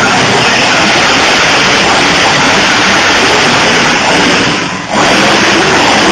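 Monster truck engine run hard as the truck drives across the arena, a very loud dense rushing noise with no clear engine note. It drops briefly about four and a half seconds in, then surges straight back.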